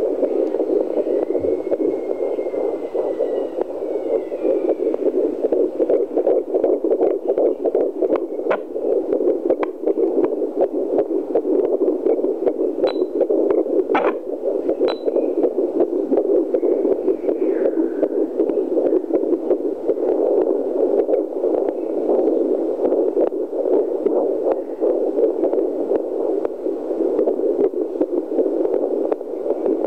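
Handheld fetal doppler's loudspeaker putting out a steady, rapidly fluctuating whoosh of static, with a few sharp clicks about halfway through.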